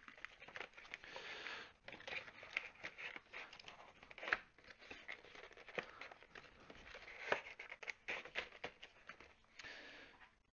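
Small cardboard boxes being handled and folded closed: a string of scattered cardboard taps, scrapes and rustles that stops near the end.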